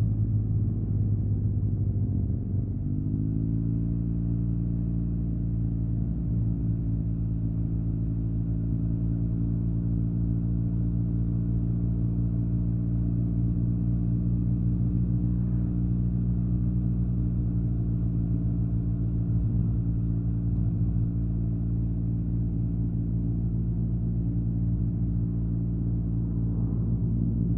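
Yamaha TMAX 560 parallel-twin engine through an Akrapovic carbon full-system exhaust, heard from the rider's helmet on the move. The engine note drops over the first few seconds as the throttle eases, holds a steady cruising pitch for most of the time, and rises a little near the end.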